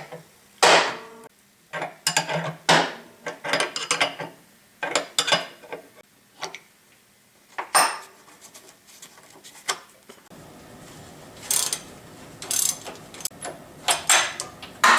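Metal parts and hand tools clanking and clicking in irregular knocks as a freed brake hub and bushing are worked off a planer's brake shaft with a ball joint separator. About ten seconds in, a faint steady hum comes in underneath.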